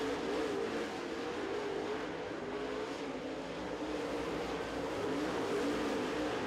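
Super late model dirt-track race car's V8 engine running at speed on the track, its note rising and falling steadily.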